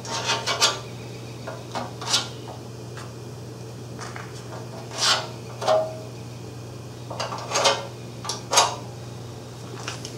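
A marking tool scraping along the edge of a steel patch plate clamped to a mower deck, tracing its outline in short scratchy strokes, several close together about seven to nine seconds in. A steady low hum runs underneath.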